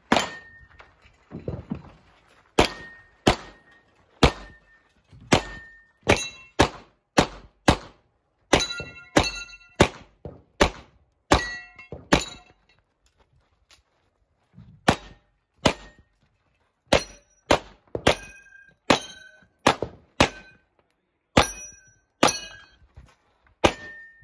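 A string of pistol shots fired in quick succession, often several a second, with steel targets ringing after many of the hits. There is a break of about two seconds partway through before the firing resumes.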